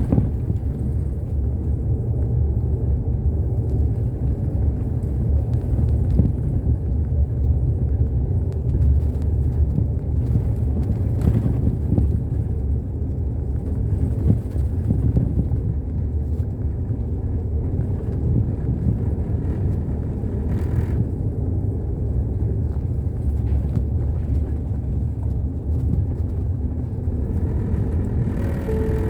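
Route bus on the road, a steady low rumble of engine and road noise.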